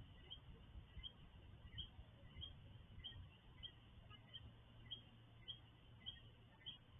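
Near silence with faint, short high chirps repeating one or two times a second, the night chorus of coquí frogs. A faint low hum runs under the second half.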